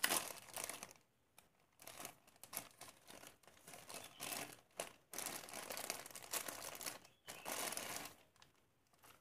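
Thin clear plastic bag crinkling in irregular bursts as hands work it open, with a short pause about a second in and fading out near the end.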